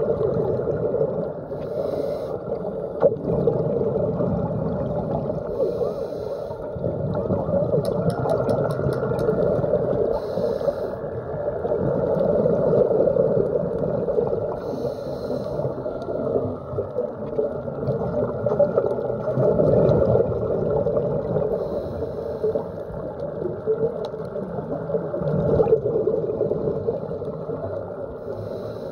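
Muffled underwater noise heard through a phone's waterproof dive case: a dull rushing and gurgling of water that swells and falls every few seconds.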